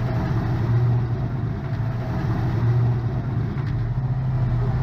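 Robotic combat vehicle's engine running with a steady low drone that swells and eases slightly, heard close up from on the vehicle's hull.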